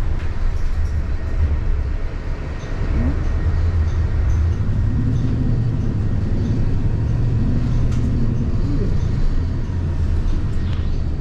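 Interior drive noise of a Nova Bus LFS hybrid city bus under way: a steady low rumble of drivetrain and road that grows louder about two and a half seconds in, with a faint wavering hum joining from about four seconds.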